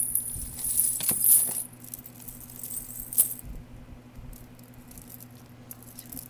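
Cloisonné beads and metal costume jewelry clinking and jangling as a tangled bin is rummaged and a bead strand is lifted out. The jangling is busiest in the first second and a half, with one more sharp clatter about three seconds in, then only light handling.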